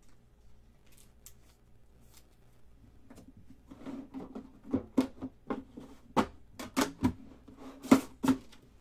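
Hands handling a hard Immaculate card box case. From about four seconds in comes a run of about nine sharp clicks and hollow knocks, the loudest near the end.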